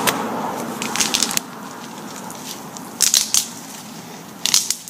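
Dry crackling, crunching noises in three short bursts: about a second in, around three seconds, and near the end.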